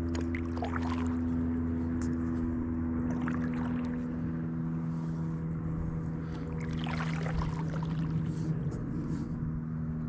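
Paddle strokes swishing through the water about every three seconds from a stand-up paddleboard, over a steady low hum.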